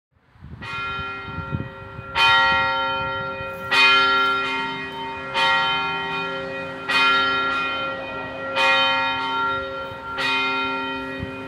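Church bell tolling: seven strokes about a second and a half apart, each ringing on with a lingering hum under the next stroke.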